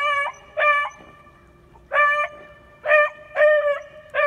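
Hunting dog barking: six short, high barks at irregular spacing, each held at one steady pitch.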